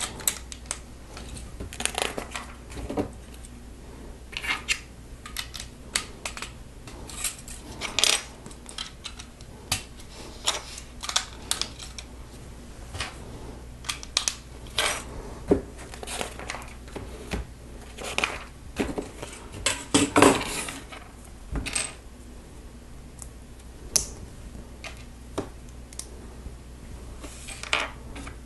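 Lego plastic pieces clicking and clattering as they are pulled off a built model and set down on a hard tabletop: scattered sharp clicks throughout, with a louder cluster about two-thirds of the way in.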